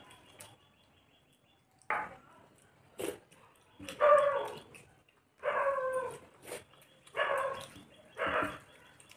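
A dog barking repeatedly: a series of short barks about a second apart, beginning about two seconds in.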